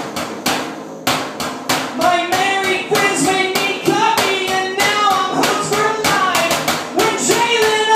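Improvised drum kit of metal pots, cans and a wooden box struck in a steady beat, with a voice singing over it from about two seconds in.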